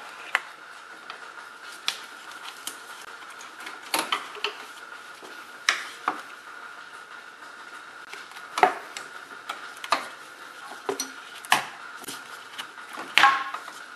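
Scattered sharp clicks and light plastic knocks as the radiator fans' electrical connectors and wiring are unclipped by hand, about a dozen over the stretch, with a faint steady high hum underneath.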